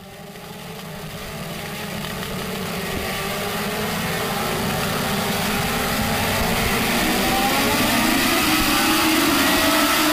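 A pack of Legends race cars with motorcycle engines running together, many engine notes overlapping, growing louder as the field approaches.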